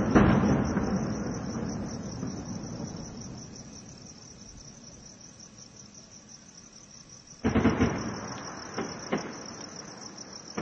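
Weapons fire in an armed clash. A loud blast right at the start echoes and rolls away over a few seconds, then another burst of fire comes about seven and a half seconds in, followed by a few fainter cracks. Crickets chirp steadily throughout.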